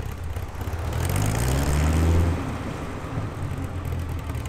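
Dodge Viper's V10 engine running at a standstill, revved once: the pitch climbs from about a second in, is loudest just past two seconds, then drops back to a steady idle rumble.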